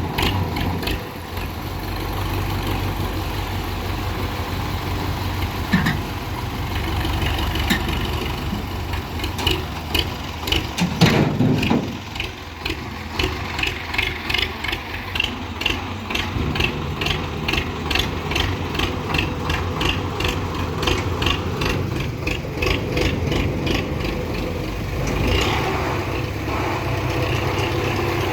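Tractor's diesel engine running steadily, with a fast, even ticking through the middle stretch, about two to three ticks a second. The engine note changes near the end.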